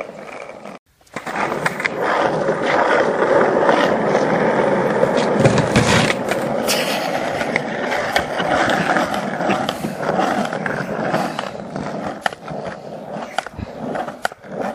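Skateboard wheels rolling over rough asphalt, a steady rolling rumble that starts about a second in, with several sharp clacks of the board, the loudest about six seconds in.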